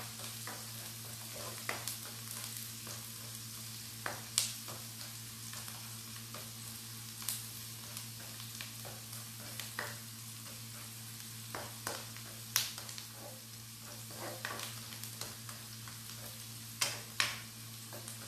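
Garlic and onion sizzling in olive oil in a frying pan, stirred with a spatula that taps and scrapes against the pan every few seconds. A steady low hum runs underneath.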